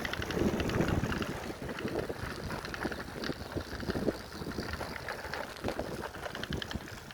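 A bicycle being ridden, with wind buffeting the microphone over the low rumble of the ride and scattered short rattles and clicks.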